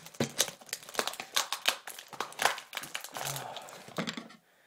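Plastic packaging crinkling and rustling as a mailer and its plastic wrap are pulled open by hand, in quick crackly bursts that stop shortly before the end.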